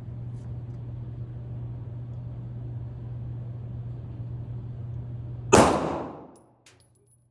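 A single handgun shot about five and a half seconds in: one loud, sharp report with a short decaying ring, over a steady low hum.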